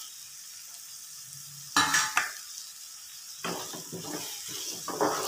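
Diced potatoes and onions sizzling in oil in a frying pan. There is a short clatter about two seconds in, and from about three and a half seconds a wooden spatula scrapes and stirs them in repeated strokes.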